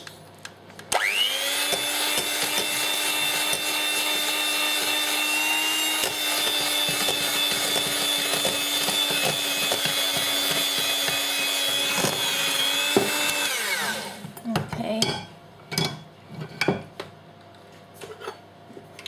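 Electric hand mixer beating flour into cake batter. It spins up about a second in, runs at a steady whine for about twelve seconds, then winds down, and a few light knocks follow.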